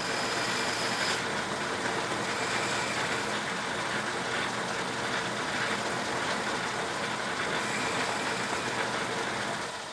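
South Bend metal lathe running while a boring bar cuts the bore of an aluminium part: a steady, dense whir of the machine mixed with the hiss of the cut.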